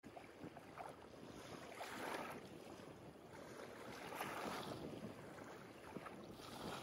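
Faint surf: small waves washing onto a beach, swelling twice, with some wind.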